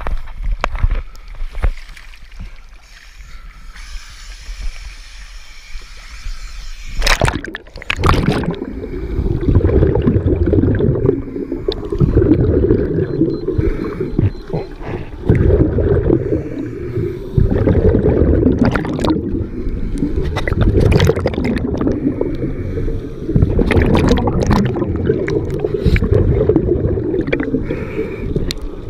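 Scuba descent heard from an underwater camera: a quieter stretch of water at the surface, a sudden splash about seven seconds in as the camera goes under, then the muffled, low gurgling of divers' exhaled bubbles with scattered sharp pops.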